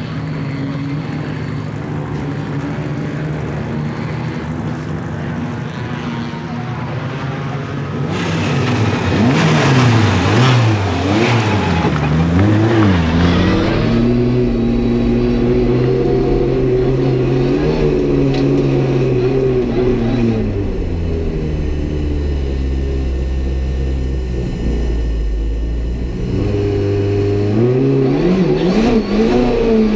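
Turbocharged 1.4-litre four-cylinder engine of a race-prepared Renault 5 GT Turbo, tuned to about 300 hp. It idles steadily at first, then is revved up and down several times, and runs on with the revs rising and falling as the car drives off, climbing again near the end. For the second half it is heard from inside the stripped cabin.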